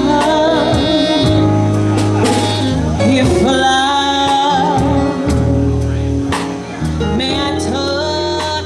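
A woman singing into a microphone over live band accompaniment, with held sung notes above deep, sustained bass notes and regular sharp percussion hits.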